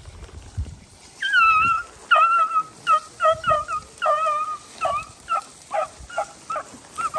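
Beagle hounds giving tongue: one drawn-out bay about a second in, then a string of short, yelping barks about two a second. This is the voice a beagle gives when running a rabbit's scent.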